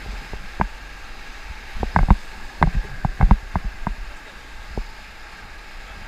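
Whitewater rapids rushing around an inflatable raft, with irregular sharp splashes and knocks from paddles and water slapping the boat. The knocks are thickest in the middle.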